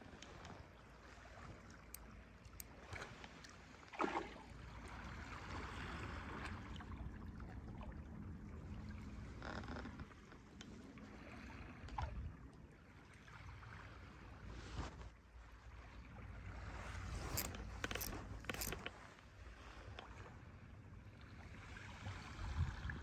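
Seawater lapping at the shore under a low steady rumble, with a few short clicks and scrapes, several of them close together about three-quarters of the way through.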